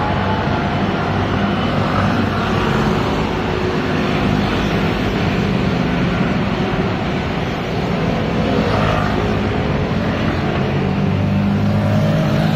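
Busy road traffic passing close by: motor scooters, cars and a small truck driving past, engines running over steady tyre noise.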